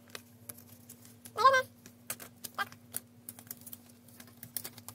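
Pages of a small paper instruction booklet being flipped through: a scattered run of light, crisp flicks and rustles, over a steady low hum. A short vocal murmur about a second and a half in is the loudest moment.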